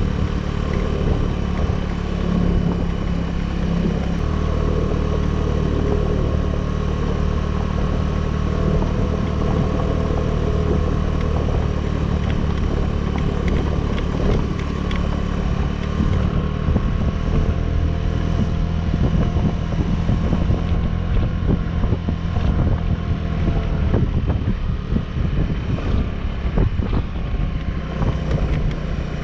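A 2018 Suzuki Burgman 200 scooter's single-cylinder engine running steadily under way on a mountain climb, with wind noise on the microphone.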